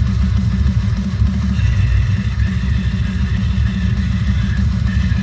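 Deathcore metal song playing loud: heavy, down-tuned distorted guitars and pounding drums, with most of the weight in the low end.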